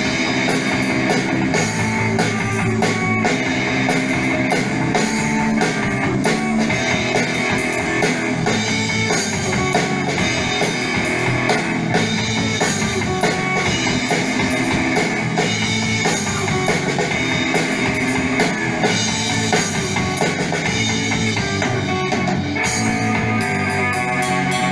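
Rock band playing live: distorted electric guitars over a drum kit, loud and unbroken.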